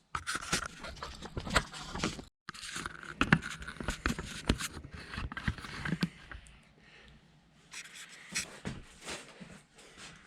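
Hand tools clinking and scraping against metal engine parts: a dense run of sharp clicks and knocks for about six seconds, then quieter with a few scattered knocks.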